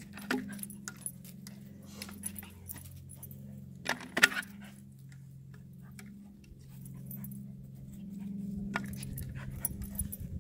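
A dog playing with a plastic bottle hung on a rope, jumping and biting at it: scattered clicks and knocks, with a loud clatter about four seconds in. A low steady hum runs underneath.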